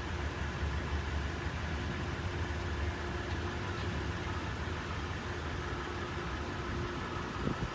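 Diesel locomotive idling steadily, a low rumble with a steady hum over it; a short knock near the end.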